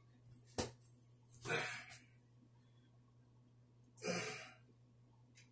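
A man sighing, two soft breathy exhales, about a second and a half in and again about four seconds in, with a small click shortly before the first.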